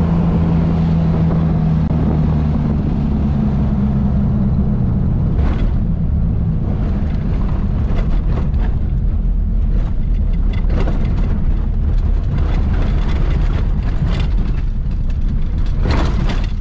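Car engine and road noise heard from inside the cabin, a steady drone at first, then rougher with frequent knocks and rattles as the vehicle runs on a dirt track.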